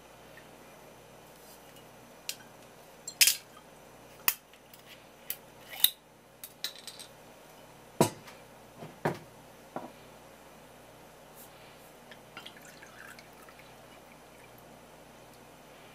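Sharp clinks and knocks of a glass sake bottle and a ceramic cup being handled on a wooden counter, the loudest about three seconds in, with sake dripping and pouring into the cup.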